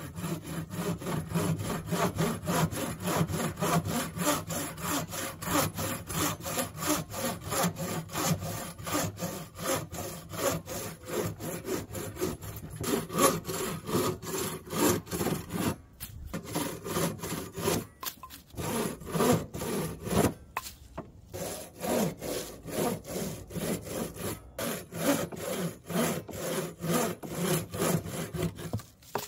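Bow saw cutting through a branch, quick even back-and-forth strokes, with a few short breaks in the second half.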